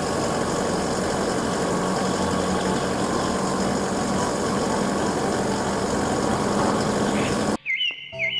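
Isuzu aerial work platform truck's engine running steadily with a constant hum as the lift platform is raised. It cuts off abruptly near the end, giving way to bright music with chirping sounds.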